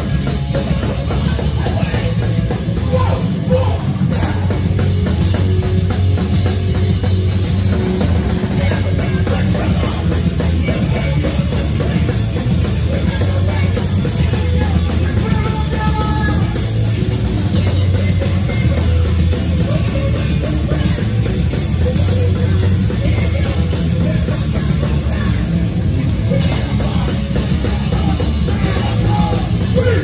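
New York hardcore band playing live: electric bass, guitar and drums, loud and bass-heavy throughout.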